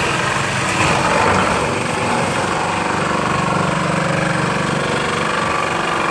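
MBA NT-2002 electric ice shaver running, its motor-driven blade grinding a block of ice into shaved ice as the lever presses it down. A loud, steady grinding motor noise.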